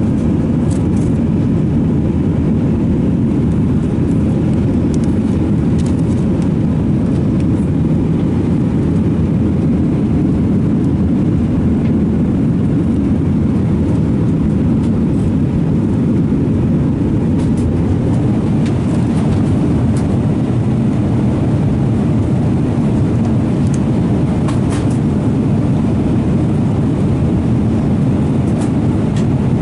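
Cabin noise of an Airbus A320-232 in flight: a steady low rumble of its IAE V2500 engines and the airflow past the fuselage, with a few faint clicks.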